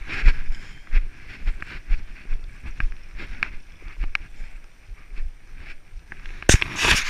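Footsteps on a rocky mountain path, heard through a body-worn camera as dull thumps about two a second with sharp ticks of shoes on stone. A loud rushing burst of noise on the microphone comes near the end.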